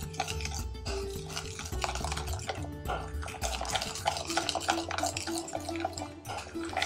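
A metal spoon stirring a thick yogurt and spice marinade in a glass bowl, with repeated scrapes and clicks against the glass, over background music.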